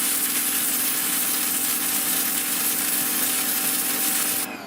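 Sunpow BCN-H electric pressure washer running with its red pinpoint nozzle: a loud, steady hiss of the water jet blasting lichen off paving, over a steady motor-and-pump hum. Near the end the spray cuts off suddenly as the trigger is released.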